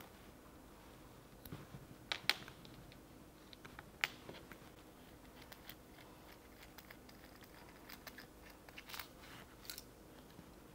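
Faint handling sounds: a few sharp clicks and taps as a plastic end-mill tube and a knurled metal tool are handled and taken apart. Among them is a close pair of clicks about two seconds in, one about four seconds in, and two more near the end.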